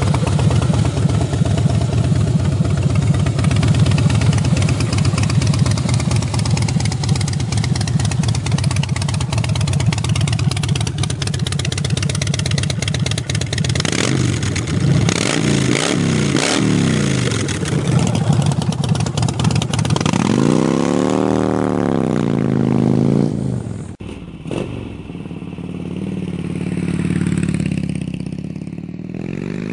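A 2009 Harley-Davidson Heritage Softail Classic's V-twin engine with an aftermarket Vance & Hines exhaust, idling steadily. About halfway through the throttle is blipped a few times, then about two-thirds through it is revved once, up and back down. After that it runs more quietly.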